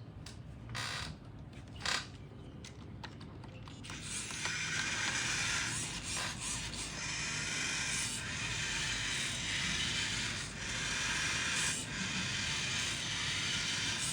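A small toy robot's plastic gearboxes and motors: a couple of clicks, then a steady, faint whirring with small knocks from about four seconds in.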